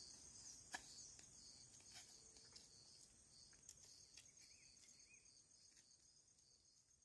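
Faint, steady, high-pitched insect chirring with a rapid even pulse, broken by a few faint light clicks. It fades away near the end.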